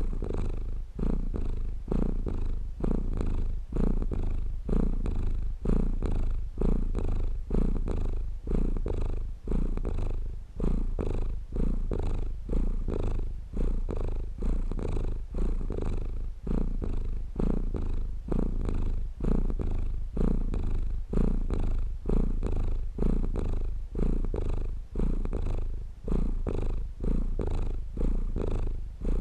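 Domestic cat purring, low and continuous, swelling and fading in an even rhythm with each breath in and out.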